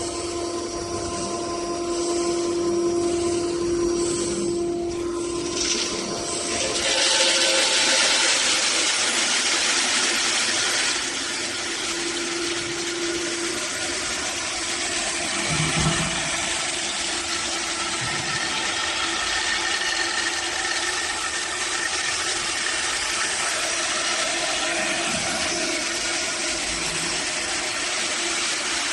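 Capsule sorting and polishing machine running: a steady motor hum, joined about six seconds in by a louder, even rushing noise that carries on without a break.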